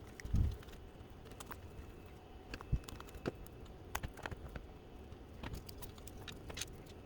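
Scattered small clicks and taps of RC car parts being handled during a wheel swap, with a soft low thump just after the start.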